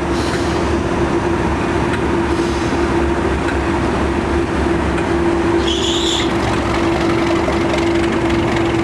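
British Rail Class 37 diesel locomotive 37219's English Electric V12 engine idling steadily while standing, with a constant mid-pitched tone over the engine's rumble. A short high-pitched whistle sounds briefly about six seconds in.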